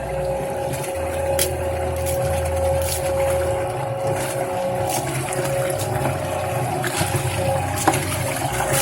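Front-loading washing machine running: a steady whine over a low motor drone that cuts in and out every second or so, with scattered clicks.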